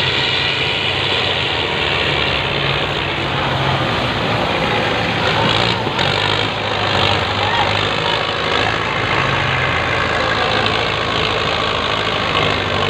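Belarus 510 tractor diesel engine running steadily and loudly, with people's voices over it.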